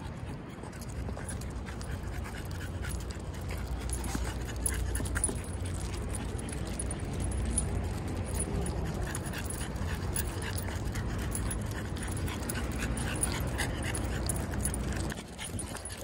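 Dog panting while walking on a leash, over a low steady rumble that drops away near the end.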